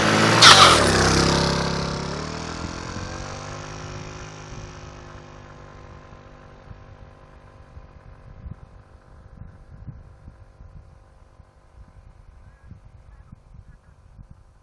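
Vehicle brakes squealing as it slows: a loud burst about half a second in, then a falling tone that levels off and fades away over several seconds.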